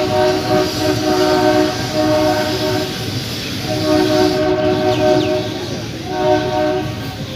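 WDM-3A diesel locomotive's multi-tone horn sounding three blasts, two long and a short one near the end, over the steady rumble of the moving passenger train.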